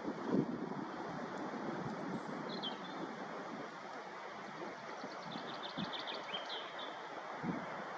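Steady wind rush on the microphone, with small songbirds calling over it: a few brief high chirps about two and a half seconds in, and a rapid trill of about ten ticks a second between five and seven seconds. A dull bump comes shortly after the start.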